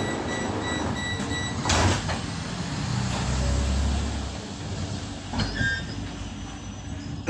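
An articulated lorry driving past close by, heard from inside a standing tram: a low engine rumble that is loudest about halfway through, with a short hiss about two seconds in.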